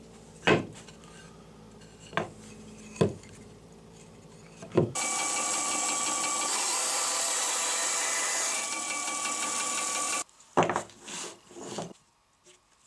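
Band saw running and cutting a hardwood block for about five seconds in the middle, a steady hiss with a whine. Before it come four sharp knocks on a wooden workbench, and after it a few more knocks.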